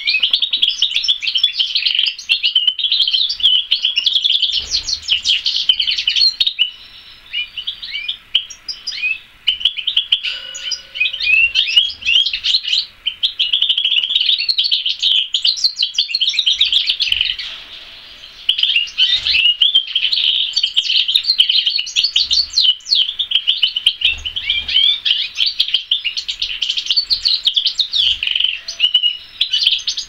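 A caged canary singing long, fast runs of twittering and trilling notes, with a couple of brief pauses.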